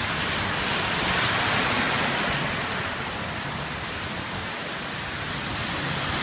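Heavy typhoon rain pouring down in a steady hiss, swelling a little about a second in and easing again after.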